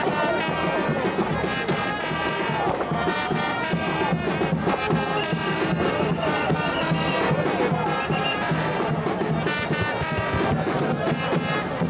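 Music led by brass instruments, playing continuously without a break.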